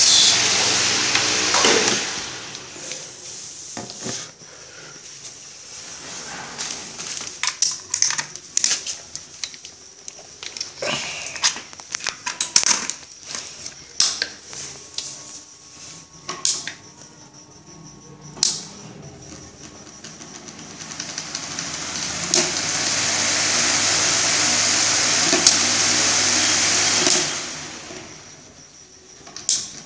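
LG table fan running with a strong rush of air and a low motor hum, which dies away about two seconds in. Then scattered clicks and knocks as plugs and wires are handled at the electronic fan regulator's socket. About twenty seconds in the fan starts again through the regulator, its air rush and hum swelling and holding before dropping off sharply near the end.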